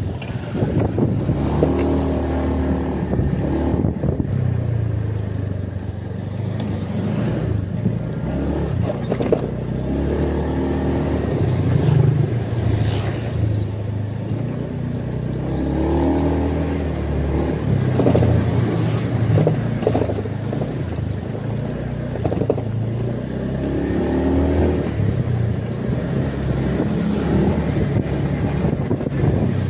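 A vehicle engine running, with a steady low rumble and a pitch that rises and falls every few seconds.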